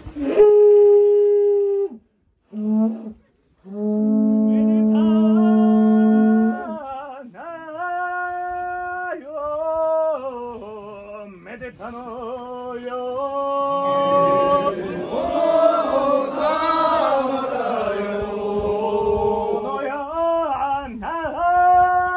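A Japanese conch-shell trumpet (horagai) sounds a few steady held blasts, jumping between two pitches an octave apart. Then men sing a traditional chant-like song in long, wavering held notes, with several voices joining in the middle.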